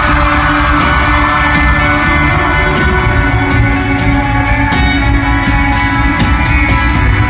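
Live rock band playing loudly: full drums with regular cymbal hits under sustained guitar chords, with no clear singing.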